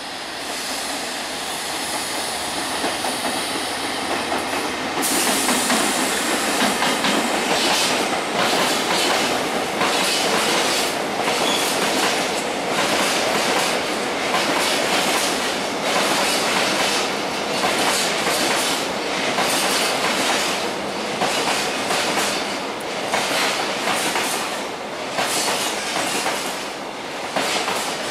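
Freight train of covered wagons rolling through at speed, its wheels clacking over rail joints in an uneven rhythm. About five seconds in, the sound turns abruptly louder and brighter.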